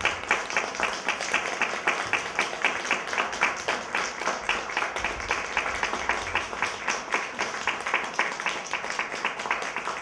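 Audience applauding, the clapping falling into a steady rhythm of about three claps a second.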